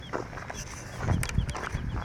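Footsteps crunching and thudding along a path at walking pace, the heaviest steps about halfway through. A faint, short, high chirp repeats about four times a second behind them.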